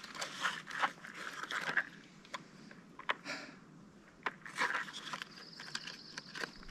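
Scattered light clicks and rustling of hands handling small objects.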